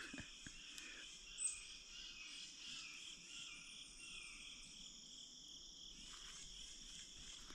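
A faint, steady chorus of insects, high-pitched, with one short high chirp about a second and a half in.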